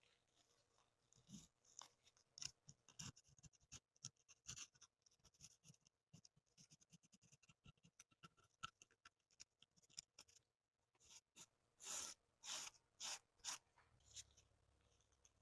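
Faint scratching and small clicks from hand work on the pistol's rusty metal parts, then four louder scraping strokes near the end.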